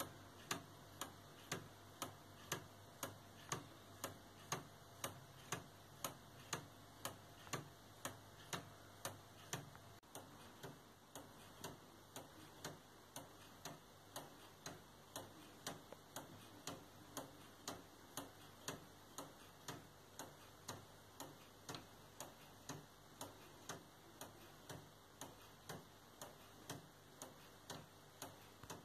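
Laser-cut wooden Robotime pendulum clock ticking steadily, about two even ticks a second, from its spring-driven movement running smoothly after fine adjustment of its gears and axles.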